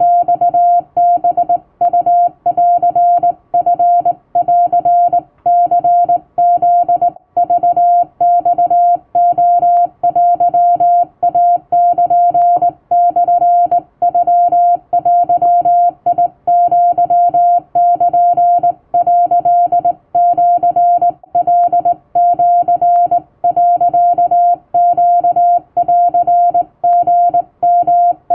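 Hand-sent Japanese Wabun Morse code: a single mid-pitched tone keyed on and off in quick dots and dashes, with short breaks between characters.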